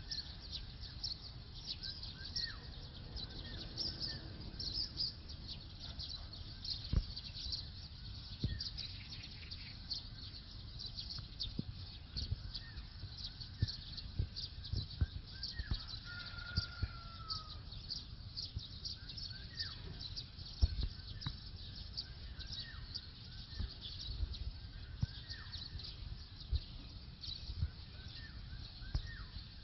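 Many small birds chirping and twittering, a dense stream of short high chirps with a few down-sweeping calls and one longer falling whistle past the middle. A low rumble runs underneath, broken by a few sharp knocks.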